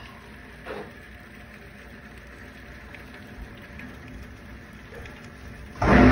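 Steady hiss of heavy rain and hail pouring down on a backyard garden, heard through window glass. A sudden loud boom breaks in near the end and is the loudest sound.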